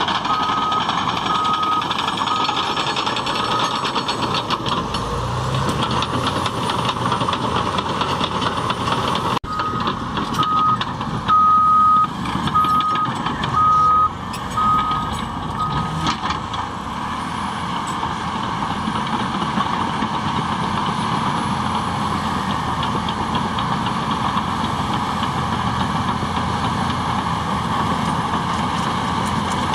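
Cat D6T crawler bulldozer's diesel engine running steadily under work, with its reversing alarm beeping while it backs up: once at the start for about three seconds and again from about ten seconds in until about sixteen seconds.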